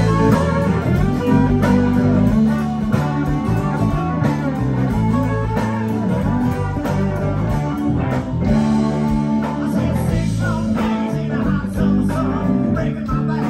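Live country-rock band playing a song on electric and acoustic guitars, bass and keyboard, with a steady beat.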